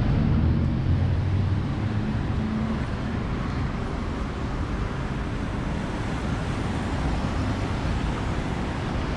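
Steady street traffic: car engines running and cars driving past, with a low hum from an engine in the first few seconds.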